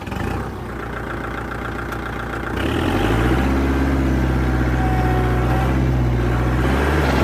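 Kubota MU4501 tractor's diesel engine running, then rising in speed about three seconds in and holding steady at higher revs.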